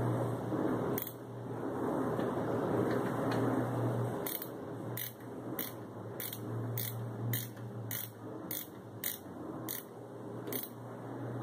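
A screwdriver clicking as the power supply's mounting screws are tightened: one click about a second in, then about a dozen sharp clicks at roughly two a second over the second half, over a steady low hum.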